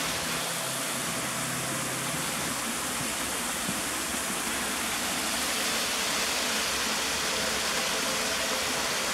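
Artificial cascade waterfall, water splashing down several tiers of rock into a pool with a steady, even rush.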